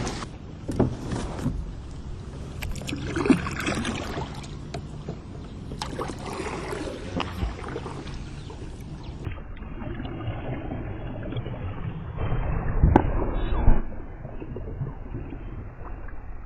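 Kayak paddling with water noise and light knocks of the paddle on the hull; about 13 s in, a single loud, heavy splash in the water, which the paddler takes for a beaver slapping its tail.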